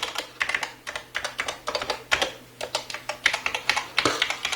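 HATOR Rockfall EVO TKL mechanical keyboard with Kailh optical switches being typed on: a quick, irregular clatter of key clicks.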